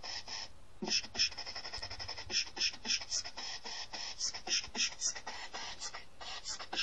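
Google Translate's Czech text-to-speech voice reading out a string of 'pv', 'zk', 'bschk' and 'kkkkkkkk' syllables, which comes out as a quick, rhythmic beatbox pattern of pops, clicks and hissing strokes. There is a short break shortly after the start.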